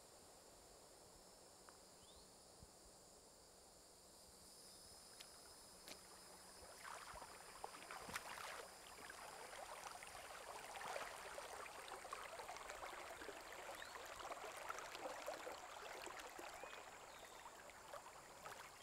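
Faint woodland ambience: a steady high insect drone, joined about six seconds in by a small creek trickling and splashing over rocks.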